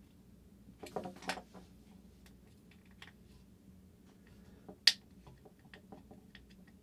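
Small clicks and rustles of hands handling the opened surge suppressor's circuit board and its insulated wires, with a cluster of clicks about a second in and one sharp click about five seconds in.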